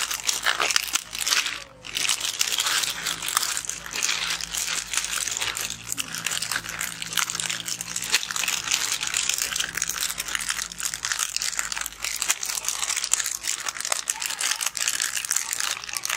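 Many small foil-lined plastic 'Shots' chocolate sachets being crinkled and torn open by hand, with a continuous busy crackle of wrappers.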